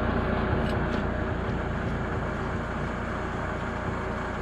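A motor running steadily, with a continuous mechanical hum and no clear starts or stops.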